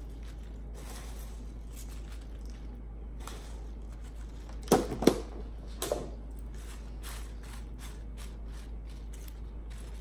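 Fresh spinach leaves handled and scattered into a glass baking dish: soft rustling, with a few sharp clicks and knocks about halfway through, over a steady low hum.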